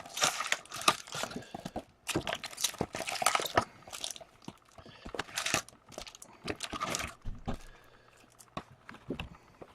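Hockey card packs being opened by hand: the wrappers crinkle and tear in irregular bursts, with small clicks and rustles between them.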